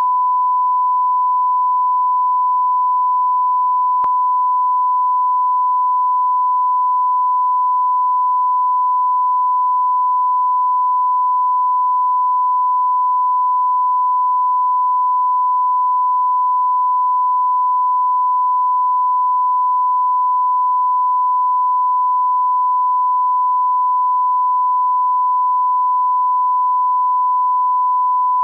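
Steady 1 kHz line-up tone played with colour bars, one pure unbroken pitch. It is the audio reference for setting levels on a broadcast tape master.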